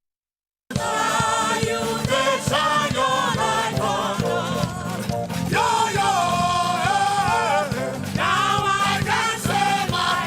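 Gospel worship music with singing. It cuts in abruptly after a brief dropout of silence near the start.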